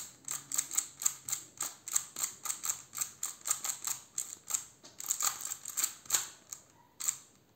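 Plastic bandaged 3x3 puzzle cube clicking as its faces are turned in quick succession through a corner-flipping algorithm, about four clicks a second, faster around two-thirds of the way through, stopping near the end.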